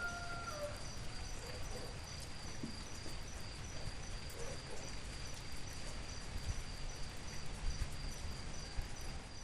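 Steady rain with a high, continuous insect trill that pulses about twice a second. A held musical note fades out in the first second.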